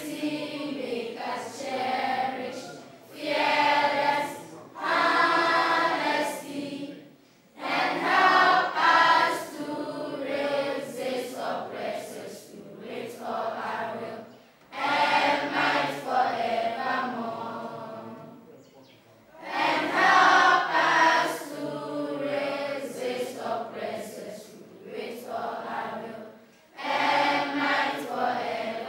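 A choir singing in long phrases with short breaks between them.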